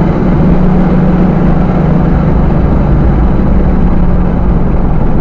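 Car engine running steadily at a constant speed with road noise, a steady low drone that holds one pitch throughout.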